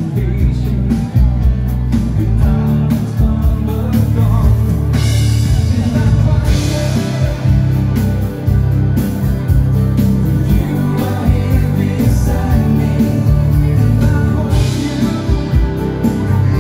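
Swedish dansband music: a singer over a full band with a steady beat, bass and guitar.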